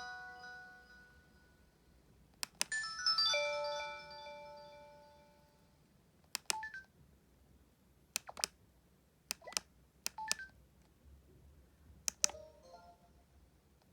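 SK Telesys IF-100 mobile phone playing its electronic sound effects as its keys are pressed. A series of sharp key clicks, most followed by a short beep from the phone's speaker; about three seconds in, a chime of several notes rings out and fades.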